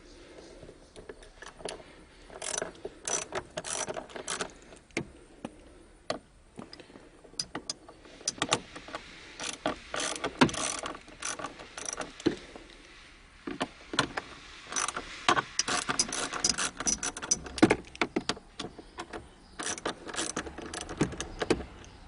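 Hand ratchet wrench loosening the four bolts that hold the shifter assembly in a Nissan 350Z's centre console, clicking in several quick runs with short pauses between them.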